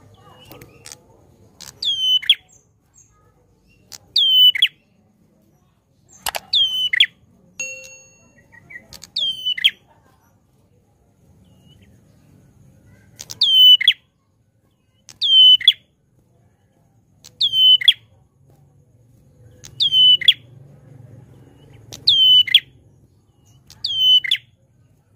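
Caged prenjak klawu singing loudly: a repeated sharp call, each a quick downward-sweeping whistle ending in a short lower note, given about every two seconds, with a pause of a few seconds about halfway through.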